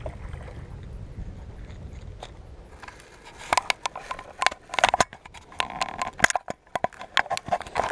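Low rumble of wind and handling on a body-worn camera's microphone. From about three seconds in come many sharp, irregular clicks and knocks as a spinning rod and reel are worked to bring in a small hooked fish.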